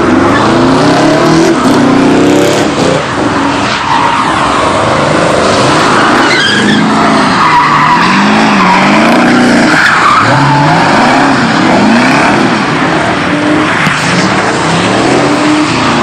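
The supercharged V8 of a Ford F-150 SVT Lightning pickup revving up and down hard during donuts, while its rear tyres squeal and skid on the asphalt.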